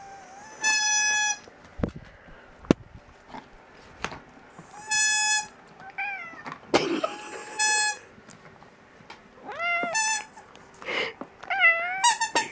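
A squeaky toy gives several long, steady squeaks, and a cat meows back between them in short calls that rise and fall in pitch. The meows come more often near the end.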